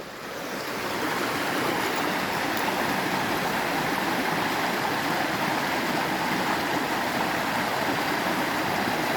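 River water rushing steadily, swelling over the first second and then holding an even level.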